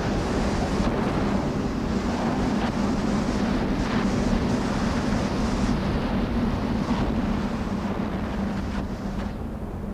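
Steady rushing of wind, laid over a low steady hum. The high hiss of the rush drops away near the end.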